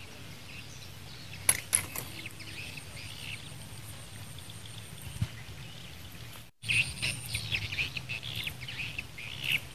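Open-air ambience of steady background noise with small birds chirping, the chirping busier in the second half after a brief dropout. Two sharp clicks about one and a half seconds in.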